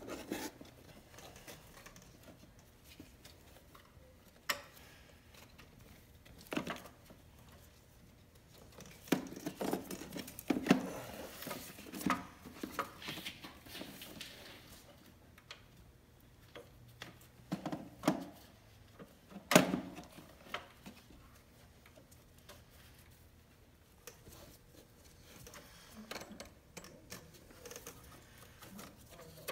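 Handling noises as a new timing belt is worked by gloved hands around the pulleys of a Volvo five-cylinder engine: soft rubbing and rustling, busiest in the middle, with scattered sharp clicks and knocks. The loudest click comes about two thirds of the way through.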